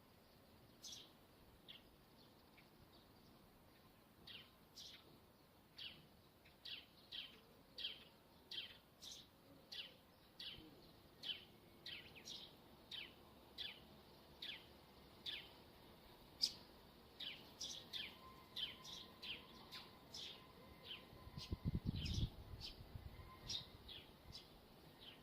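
Wire of a rooftop TV antenna squeaking in the wind: a long run of short, high squeaks, each falling in pitch, about one or two a second at uneven intervals. A brief low rumble comes near the end.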